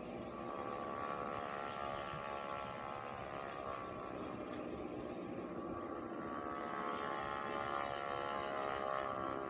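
Soundtrack of an animated children's video playing through a TV's speakers: a steady blend of held tones with little change, getting slightly louder near the end.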